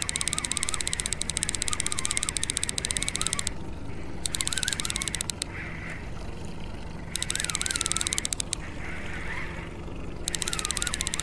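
Trolling reel being cranked in spurts, a fast ticking with a wavering squeak, stopping twice for a few seconds before starting again. A steady low hum runs beneath it.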